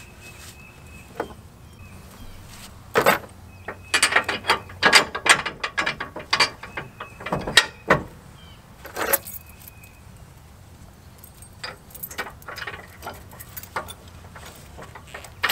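Metal clicks and clanks as a receiver-hitch pin lock is fitted through the hitch receiver and ball mount. Sharp knocks come thick and fast from about three seconds in to about ten seconds, then a few fainter clicks follow.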